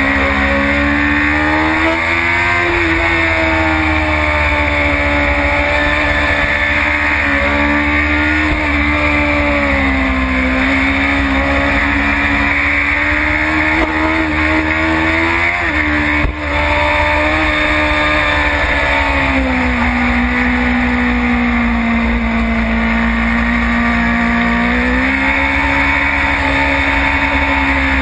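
BMW S1000RR superstock's inline-four engine running at high revs on track, its note rising and falling as the rider works the throttle, with one sudden drop in pitch about halfway through. A low wind rumble from riding at speed lies under it.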